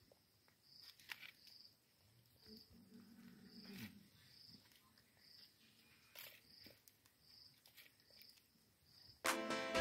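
Faint outdoor quiet with a high insect chirp repeating about twice a second. Over it come a few soft clicks from vervet monkeys handling fruit on a plate and a brief low grumbling call from one of them about three seconds in. Music starts near the end.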